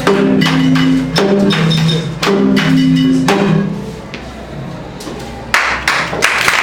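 Live band music: sustained low chords, each struck with a sharp percussion hit about once a second, stopping about four seconds in. Near the end the audience breaks into applause.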